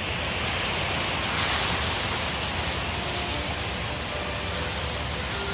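Steady splashing and rushing of running water in a garden pond.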